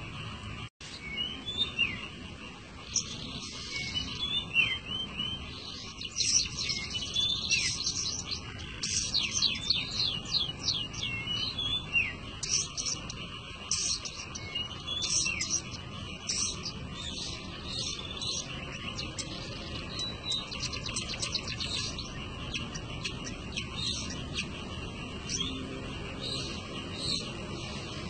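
Long-tailed shrike (pentet) singing a fast, varied song of chirps, trills and short whistled glides. It is busiest in the first half and turns sparser toward the end.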